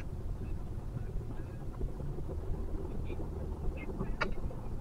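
Steady low rumble of slow city traffic, car and motorbike engines idling and creeping, heard from a car stuck in a jam, with one short sharp click about four seconds in.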